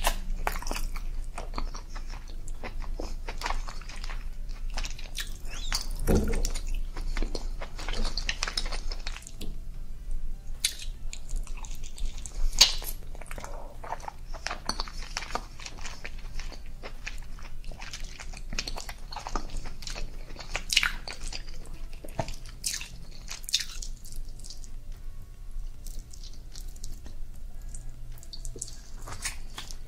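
A person chewing king crab leg meat dipped in creamy sauce: many small irregular mouth clicks and chewing sounds. There is a louder, deeper bite about six seconds in and a sharp click near thirteen seconds.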